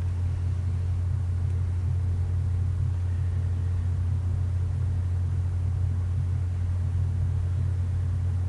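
A steady low hum with a faint hiss over it, unchanging throughout.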